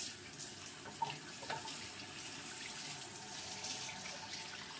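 Tap water running steadily into a sink, rinsing out a freshly gutted fish, with a couple of light knocks about a second in.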